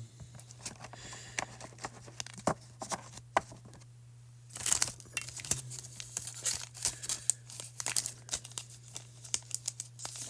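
Trading cards handled with scattered light clicks and taps, then, from about halfway, the foil wrapper of a Pokémon booster pack crinkling and tearing. A steady low hum sits underneath.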